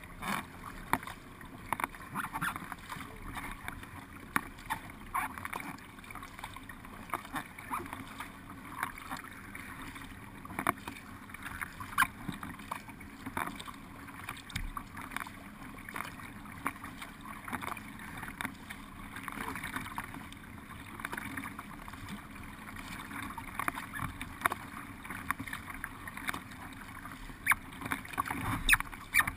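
Paddle strokes and water splashing against a racing kayak's bow, with a steady rush of water along the hull and irregular sharp splashes and drips.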